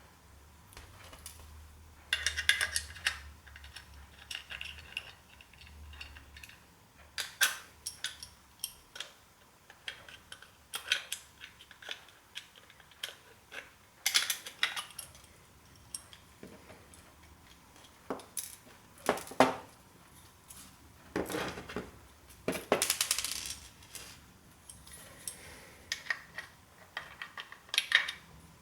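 Hand tools clicking and clinking on the metal parts of an old hard drive while its stepper motor is worked free: irregular sharp clicks and short metallic clatters, with longer rattling scrapes now and then.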